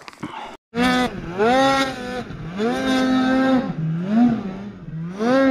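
Snowmobile engine revving up and down in repeated swells, about four times, as the sled is throttled through deep powder. It comes in abruptly under a second in.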